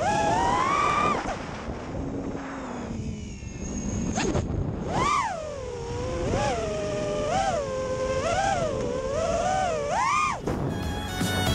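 Racing quadcopter's brushless motors and 5-inch props whining, the pitch rising and falling with the throttle: a climb in the first second, a lower stretch, a sharp rise about five seconds in, then a wavering about once a second and a final climb. Music comes in near the end.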